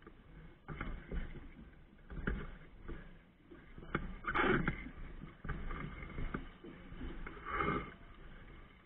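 Wind and water noise aboard a Hobie Cat 16 catamaran under sail, coming in irregular surges, the strongest about four and a half and seven and a half seconds in.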